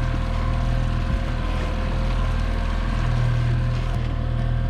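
Fishing boat's engine running steadily at trolling speed: a constant low hum with a faint steady whine above it.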